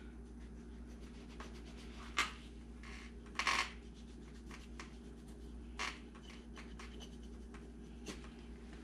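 A knife cutting through a coyote hide's ear cartilage as it is trimmed away around the ear opening: a few short, faint scraping cuts, the clearest about three and a half seconds in, over a low steady hum.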